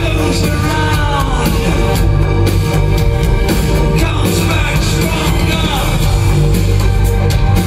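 Live industrial band playing loud through a concert PA: heavy bass and regular drum hits under a sung voice that glides up and down in pitch twice, about half a second in and again after four seconds.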